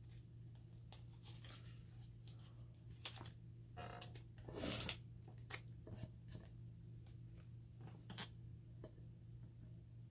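Vinyl circle stickers being peeled from their paper backing sheet and handled: faint scattered crackles and rustles, with a louder crackle about four and a half seconds in, over a low steady hum.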